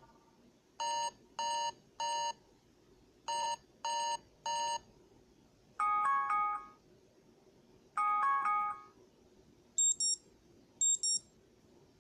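Amazon Fire electronic alarm tones: two sets of three short, evenly spaced beeps, then two short multi-note chimes, then two quick high-pitched double beeps.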